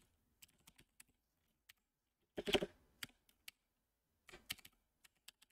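Typing on a computer keyboard: scattered keystroke clicks, with two denser clusters of keystrokes about halfway through and near the end.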